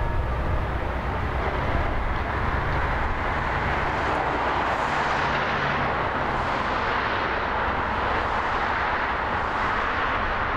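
Steady road traffic noise: a continuous rushing hum of passing cars over a low rumble, swelling slightly about midway.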